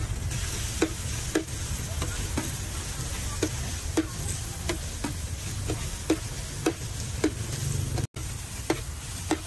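Metal spatula scraping and clacking against a large flat steel griddle as short noodles are stir-fried, with frying sizzle and a steady low rumble underneath. The sharp spatula strokes come at uneven intervals, about one and a half a second.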